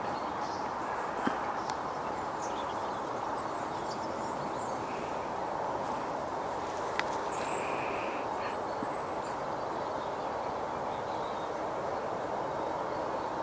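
Small birds chirping now and then over a steady, even hiss of background noise, with two soft clicks, one about a second in and one about halfway through.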